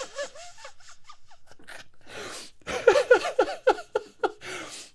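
A man laughing into his hand: a few short giggles at the start, then a burst of quick, pitched laugh pulses in the second half.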